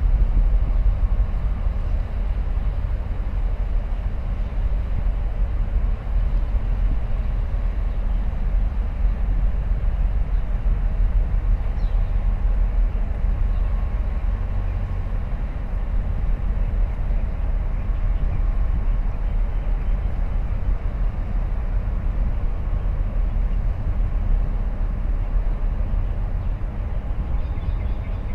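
Steady low rumble of a large container ship passing close by under way into port, with a faint steady hum above it.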